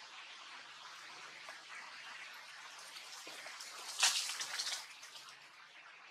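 Dry leaf litter rustling and crackling in a short burst about four seconds in, over a steady faint hiss.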